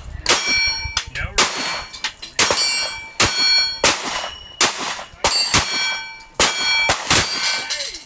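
About ten pistol shots fired one after another from a SIG Sauer P365 micro-compact, roughly one every half second to a second. Several are followed by a ringing ding as the bullet strikes a steel target plate.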